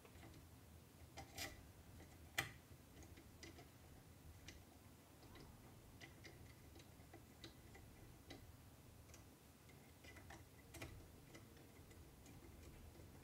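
Faint, irregular small metallic clicks of a precision screwdriver turning the small screws in the heater block of an AnkerMake M5 hot end, as the reinstalled nozzle is clamped in. The sharpest click comes about two and a half seconds in.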